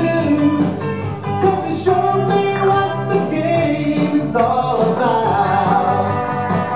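A song playing: singing over instrumental backing that includes guitar.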